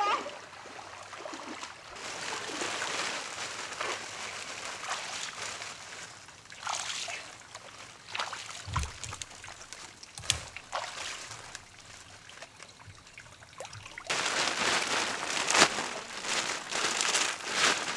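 Shallow pond water splashing and trickling as someone wades and works in it. About fourteen seconds in, a louder stretch of rustling starts as a plastic tarp is handled.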